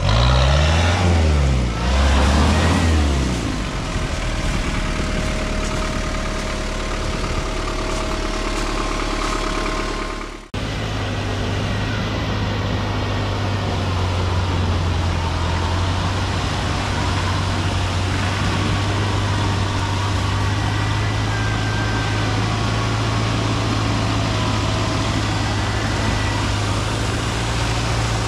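Daihatsu Rocky 4x4's engine revving in rising and falling surges while stuck in deep mud, then settling to a steady drone. The sound cuts off suddenly about ten seconds in, and a steady low engine drone follows as the vehicle crawls forward on a line.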